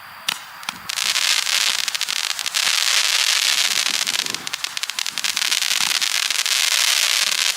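Black Market "Fast Trigger" consumer firework cake going off: two sharp pops, then from about a second in a dense, continuous crackling that keeps up, with a brief lull just past the middle.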